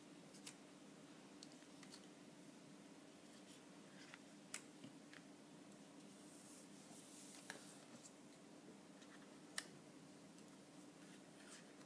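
Near silence: a faint steady room hum with a few soft clicks and rustles of small paper cutouts being handled and pressed onto a card, the clearest about three quarters of the way in.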